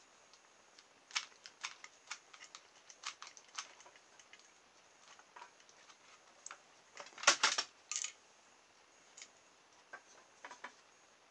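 Scattered light clicks and taps of hands working with a hot glue gun and a wooden mousetrap, then a louder clatter of knocks about seven seconds in as the mousetrap is set down and pressed onto the sheet-metal DVD-drive case, followed by a few more taps near the end.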